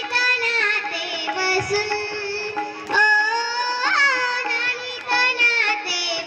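A girl singing a Marathi gaulan, a devotional folk song about Krishna, with a wavering, ornamented melody over live instrumental accompaniment.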